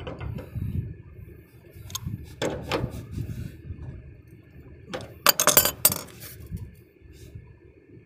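Steel adjustable wrench clinking against the brass flare nut and service valve of an air conditioner's outdoor unit as the nut is tightened to stop a refrigerant leak. Scattered metallic clinks, with the loudest cluster about five seconds in.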